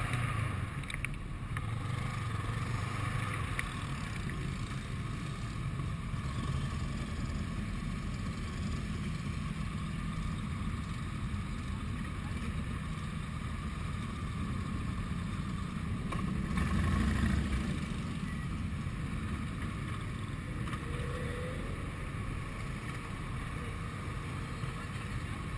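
Motorcycle engines running and idling at low speed in a slow-moving pack of bikes, a steady rumble with one louder swell about two thirds of the way through.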